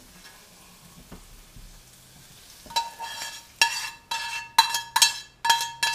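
Butter-fried mushrooms sizzling faintly in a skillet, then a utensil scraping and knocking against the pan as the mushrooms are scraped out onto a plate: about seven ringing knocks, roughly two a second, in the second half.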